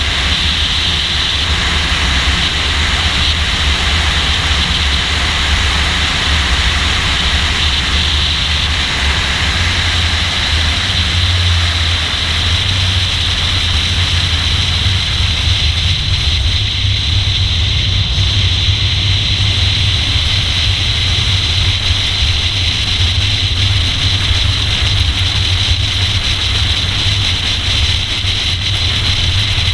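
Car engine running under steady load at track speed, a low drone, with wind rushing over a hood-mounted action camera.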